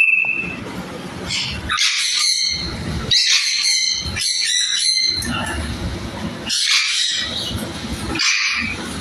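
African grey parrots in a bird room calling, short squawks and whistled notes coming in repeated clusters from several birds.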